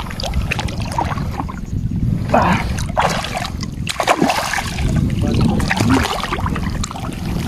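Water splashing and sloshing as gloved hands dig and stir in waist-deep muddy water, in a string of short uneven splashes over a steady low rumble.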